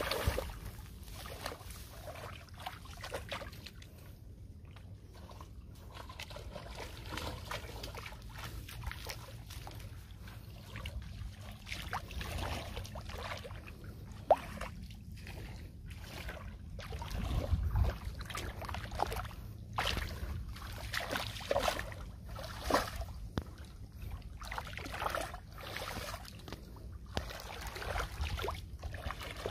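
Shallow pond water sloshing and trickling as hands grope through water and mud into crab burrows, with irregular small splashes.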